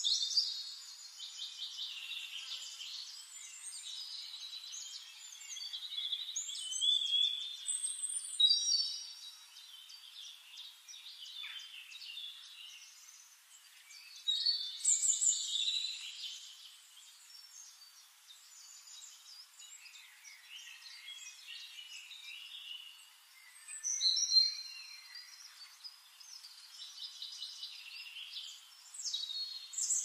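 Small songbird singing: repeated phrases of high, rapid chirps and trills, a few seconds apart.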